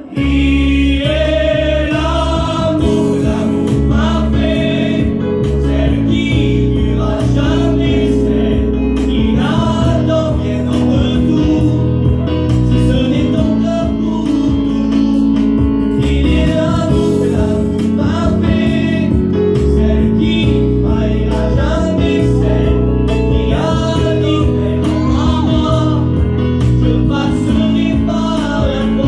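A French Christian hymn sung live by a male voice into a microphone, with other voices joining in, over steady instrumental accompaniment.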